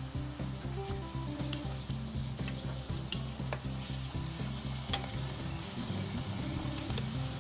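Sausage and bell peppers sizzling in a nonstick pan with a splash of water, stirred and scraped with a wooden spatula, with sharp taps of the spatula now and then. Low background music runs underneath.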